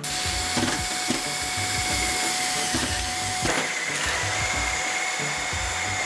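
Xiaomi handheld cordless vacuum cleaner running steadily with its brushless motor and motorized floor brush: a rush of air with a steady high whine, and a few clicks as debris is picked up. Background music with a beat plays underneath.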